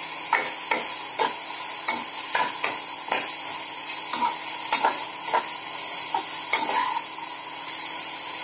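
Chopped vegetables sizzling as they sauté in oil in a frying pan, stirred with a perforated metal spatula that scrapes and knocks against the pan about twice a second, some knocks with a brief ring.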